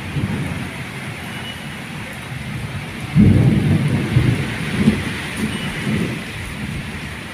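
Steady rain, with a rumble of thunder that starts suddenly about three seconds in and rolls on for three seconds or so.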